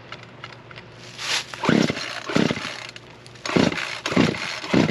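Chainsaw being pull-started on a chainsaw mill: about six quick yanks of the starter cord, each a short rasping whirr, and the engine does not catch. Just after this, the operator remarks "oops, if it's on", suggesting the ignition switch was not on.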